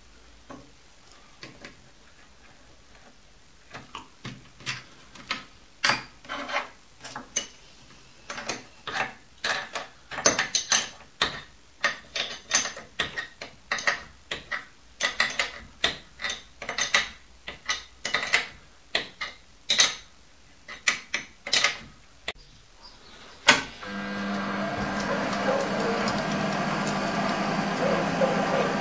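A string of irregular sharp clicks and knocks, about one or two a second, from handling on and around the Optimum D180x300 Vario mini lathe. Late on, a louder click, and the lathe's motor starts and runs with a steady hum.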